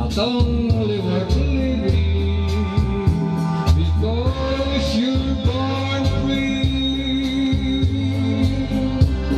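A man singing into a microphone over a backing track with a steady beat and bass line; the voice glides between held notes.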